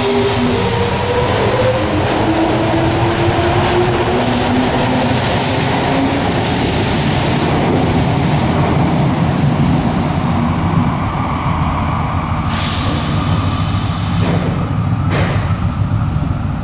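Osaka Subway 70 series linear-motor train departing an underground station: a rising motor whine as it accelerates over the rumble of its cars, the rumble carrying on as it runs off into the tunnel. Two short sharp sounds near the end.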